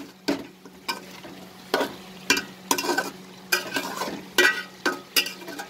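Flat metal spatula scraping and stirring spiced chicken and potatoes in an aluminium pot, about two quick strokes a second, over the sizzle of the food sautéing.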